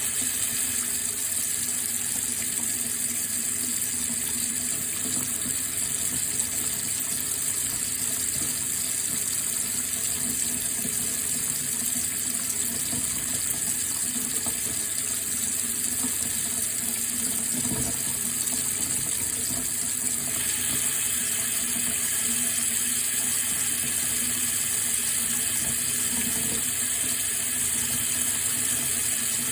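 Water running steadily in an unbroken hiss, growing a little brighter about twenty seconds in.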